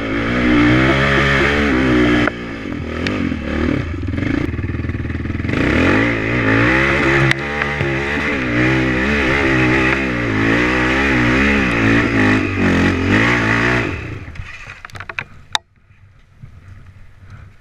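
ATV engine revving up and down under load while climbing a steep dirt trail, its pitch rising and falling with the throttle. About fourteen seconds in the engine note fades away, followed by a single sharp knock.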